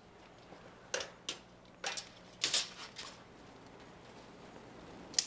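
A steel tape measure being pulled out and extended upward: a few light clicks and rattles of the blade, then one sharp click near the end. A faint low hum runs underneath.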